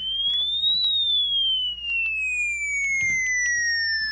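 Electronic emergency-alert tone that rises in pitch for under a second and then glides slowly downward. Scattered clicks and crackle run through it over a low hum.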